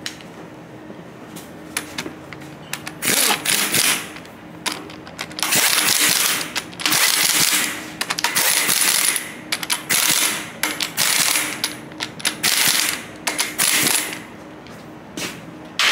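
Impact wrench hammering bolts down in repeated short rattling bursts, running in the bolts that hold the output retainer down on a marine gearbox housing.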